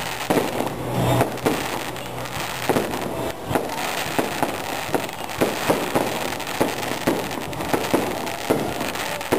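Aerial fireworks shells bursting overhead in a rapid, irregular string of sharp bangs, two or three a second, over a continuous noisy wash.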